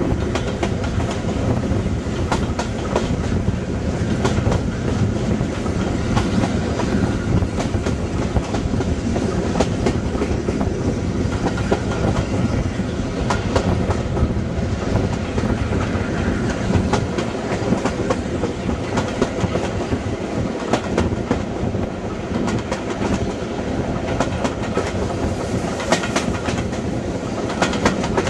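A steam-hauled train running, heard from an open carriage window just behind the locomotive: a steady rumble with wheels clicking over the rail joints, as A1 Peppercorn Pacific 60163 Tornado works the train with steam blowing back along the coaches.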